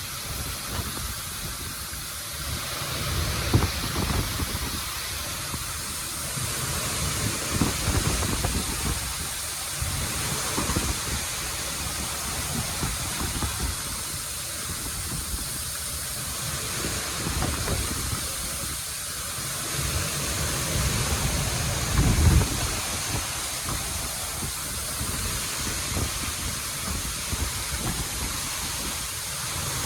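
Waterfall pouring steadily, a constant rushing hiss of falling water, with irregular low rumbles, the loudest about 22 seconds in.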